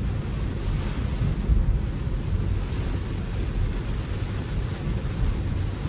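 Steady low rumble inside a Tesla Model 3's cabin: tyre and road noise on a wet road in the rain.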